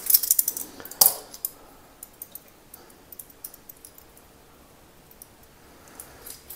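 A metal tablespoon clinks against a stainless steel mixing bowl, with a sharp clink about a second in. After that come faint scattered ticks and scrapes as sugar is scooped from a glass jar.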